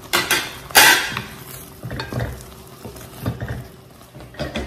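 A metal utensil knocking and scraping against a pan while stirring spice paste frying in hot oil with lemongrass, galangal and bay leaves, a light sizzle underneath. The loudest clack comes about a second in, with a few more spread through the rest.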